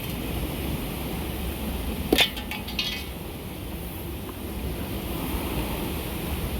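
Fast whitewater rapids rushing steadily, with a few sharp metal clinks about two seconds in.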